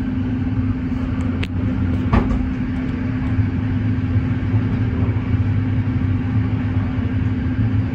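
Passenger train running at speed, heard from inside the carriage: a steady drone with a low held tone, and two short sharp clicks about one and a half and two seconds in.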